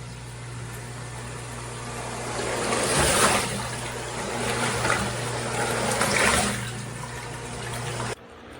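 Submersible sump pump running: a steady motor hum under rushing, splashing water that swells several times. The hum and the rush cut off suddenly near the end as the pump stops.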